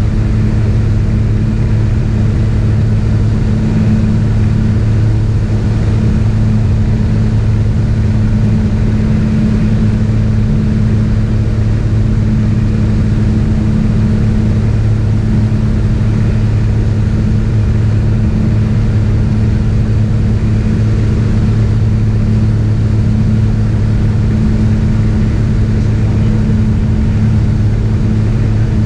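Piston engine and propeller of a single-engine light aircraft heard from inside the cabin in flight: a loud, steady drone that holds one pitch throughout.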